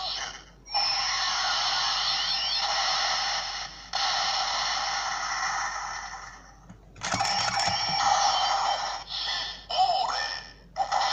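DX Kamen Rider toy belt with the Showa Rider Lockseed inserted, playing its electronic sound effects and music through its small built-in speaker, tinny with no bass. It comes in several long stretches broken by short pauses.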